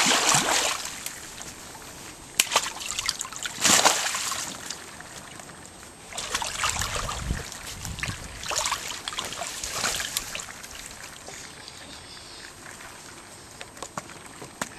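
Water splashing and sloshing in a small inflatable paddling pool as a toddler moves his arms in it, in irregular bursts with quieter trickling between; the loudest splashes come right at the start and about four seconds in.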